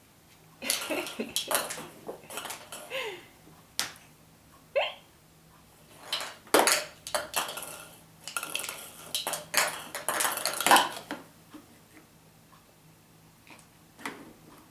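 Hard plastic toys knocking and clattering together in irregular bursts as a baby bangs a plastic toy against a plastic ride-on toy car. A short rising squeal is heard about five seconds in.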